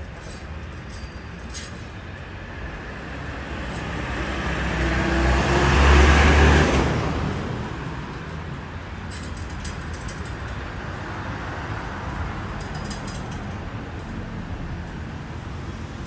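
A motor vehicle passing by, its noise swelling to a peak about six seconds in and then fading, over a steady background of traffic.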